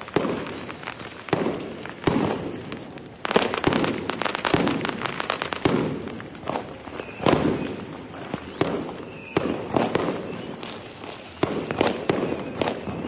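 Fireworks going off: a string of sharp bangs and pops at irregular intervals, with a dense run of rapid crackling from about three seconds in that lasts a couple of seconds.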